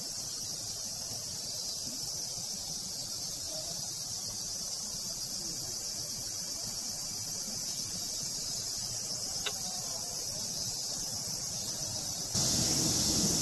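Steady, high-pitched chorus of insects shrilling in the surrounding trees. There is a faint click about nine and a half seconds in, and the chorus gets louder near the end.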